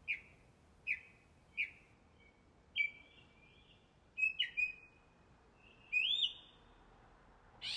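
A bird calling: three short, sharp chirps that drop in pitch, then three longer whistled notes that sweep upward.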